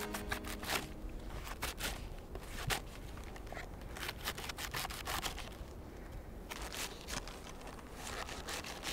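Knife shredding a fresh head of cabbage, a run of crisp cuts at uneven intervals.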